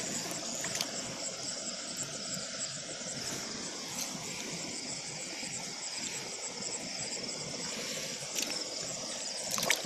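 Night chorus of insects, crickets trilling steadily in high-pitched bands; the calls are not from frogs. A few faint clicks sound over it, the strongest near the end.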